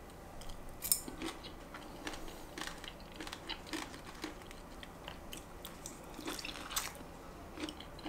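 Close-up chewing of kimchi rice and grilled pork jowl: a run of short, irregular mouth clicks and crackles, a little louder about a second in and again near the seven-second mark.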